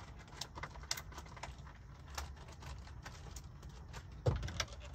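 Small plastic zip bag crinkling, with light clicks as it is handled, and one louder knock a little after four seconds in.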